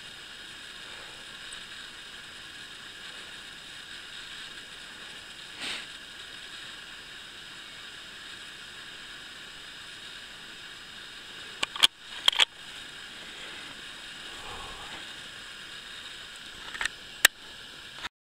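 Steady hiss with a quick run of four sharp mechanical clicks about twelve seconds in and two more clicks near the end.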